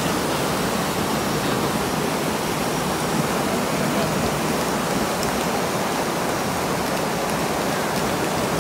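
Muddy floodwater rushing through the breach of an experimental landslide dam: an even, unbroken rush of water.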